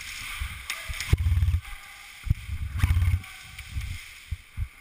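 Two bursts of low, rapidly fluttering rumble, the longer one about two seconds in, and a couple of sharp knocks near the end: handling and movement noise on a body- or gun-mounted action camera during close-quarters airsoft play.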